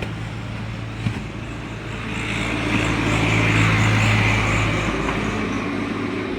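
Motor vehicle engine running steadily. It grows louder about two seconds in, is loudest around four seconds with an added hiss, then eases off.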